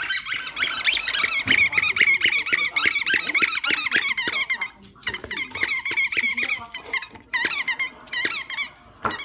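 Squeaky tennis ball being chomped by a dog, rapid high squeaks several a second, pausing briefly about five and seven seconds in.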